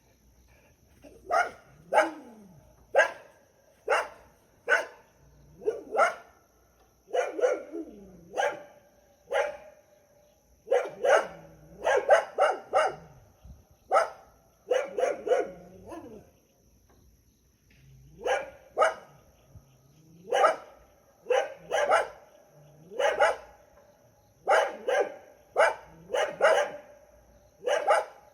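A dog barking repeatedly in the countryside, sharp single barks and quick runs of two to four, about one a second, with a brief lull a little past halfway.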